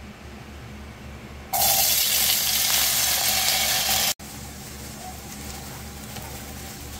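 Diced potatoes hitting hot oil in a frying pan: a loud sizzle starts about a second and a half in and cuts off abruptly about four seconds in. A quieter, steady sizzle of the potatoes frying follows.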